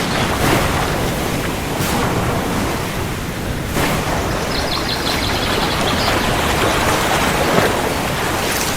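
Heavy rain falling steadily, with a low rumble of distant thunder underneath.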